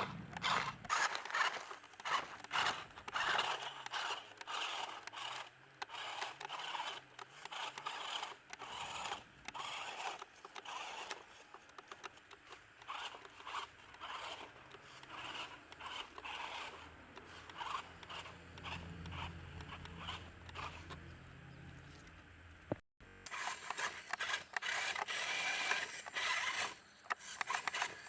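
Mini 4WD RC truck driving over rough ground: irregular crunching and scraping of its tyres on dirt and gravel, with a faint low hum underneath. The sound drops out for an instant about three quarters of the way through.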